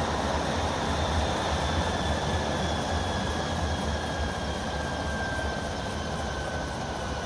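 Medical helicopter hovering low over a helipad as it comes in to land: steady rotor and turbine noise with a faint whine falling slightly in pitch, slowly getting quieter.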